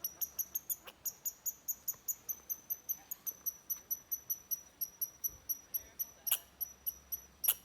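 Red squirrel giving a rapid series of short, high-pitched alarm chirps, about five a second. The chirps space out in the last couple of seconds, with two sharper, louder calls near the end.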